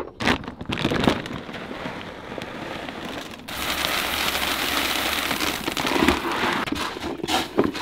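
A plastic bait bag crinkling as it is handled. About three and a half seconds in, a steady rush of dry bait pellets pours from the bag into a plastic bucket for about three seconds.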